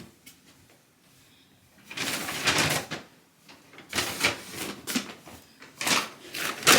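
Rustling and handling noises in several short bursts, starting about two seconds in after a quiet stretch.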